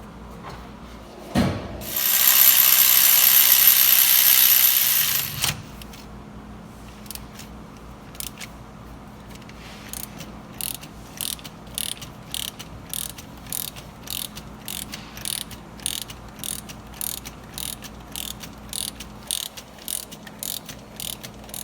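Hand ratchet wrench clicking in quick short strokes, about two clicks a second, as bolts are worked loose during engine teardown. Before that, a click and then a loud steady hiss lasting about three and a half seconds.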